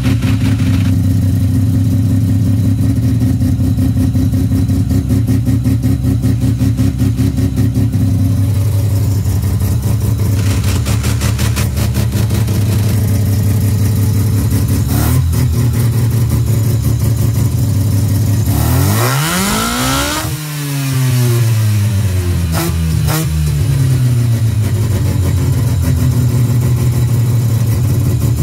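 12A full-bridgeport rotary engine on a Holley four-barrel carburettor idling steadily, blipped by hand at the throttle linkage. There is a small blip about halfway through, then one clear rev that climbs and falls back to idle, and another short blip soon after. The carburettor still has its stock air bleeds, which the owner says leave the engine with a stumble when the throttle is stepped on.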